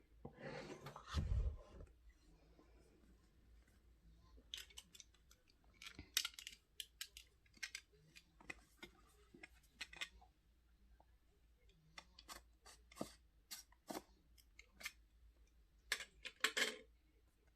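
Earbud box packaging being handled and opened. There is a rustle and a dull thump in the first two seconds, then a scattering of short, sharp snips and clicks.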